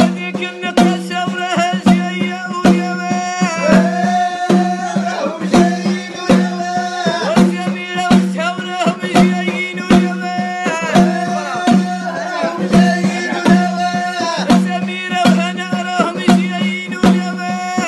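A man singing an Arabic song with long, ornamented, wavering notes, over a steady drone and a hand-drum stroke about once a second.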